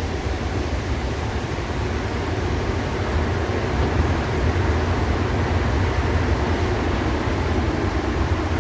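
Inside a Paris Métro MP 73 rubber-tyred train in motion: a steady, deep rumble of the running car with a broad hiss over it, growing a little louder about four seconds in.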